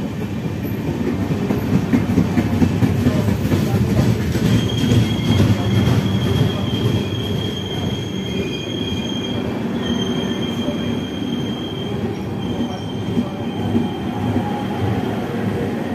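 Red LHB passenger coaches of an Indian express train rolling past close by, a steady heavy rumble of wheels on rail. A high-pitched squeal comes and goes over it from about four seconds in.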